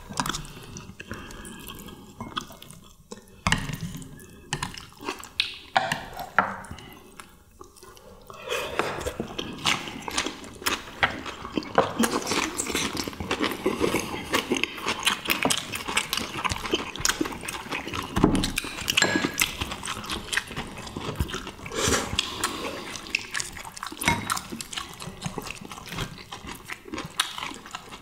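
People eating: chopsticks clicking against plates and bowls, then from about eight seconds in steady wet chewing and smacking of mouthfuls of fish and cabbage wraps.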